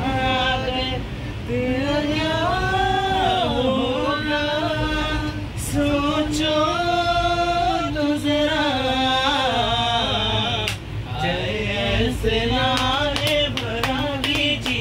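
A group of people singing a song together without instruments, with long held and gliding notes, over the steady low rumble of a moving train coach.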